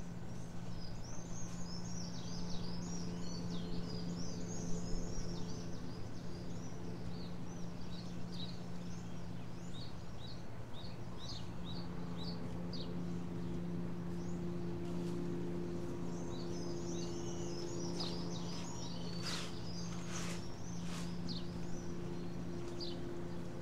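Small songbirds chirping and singing in quick high notes, busiest at the start and again in the second half, over a steady low hum.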